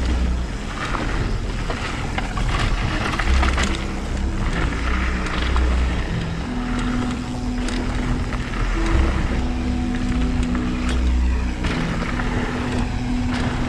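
Trek Remedy 8 full-suspension mountain bike descending a trail at speed: wind buffeting the microphone, tyres rolling over gravel and dirt, and the bike rattling and knocking over bumps.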